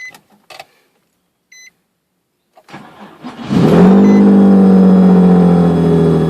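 Two short chime beeps, then the starter cranks briefly and the 2003 Nissan 350Z's 3.5-litre V6 catches about three and a half seconds in, flares and settles into a loud, steady fast idle. This is the noise the owner says began after the radiator was replaced.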